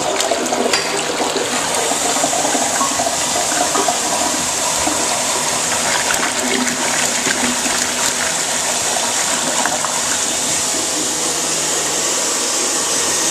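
Crane toilet flushing: a rush of water that starts suddenly, then settles into a steady hissing flow.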